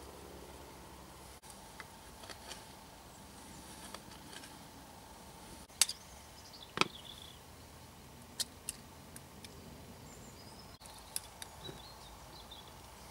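Quiet outdoor background with a scattering of short, sharp clicks and taps, the two loudest about a second apart in the middle, and a few faint high chirps.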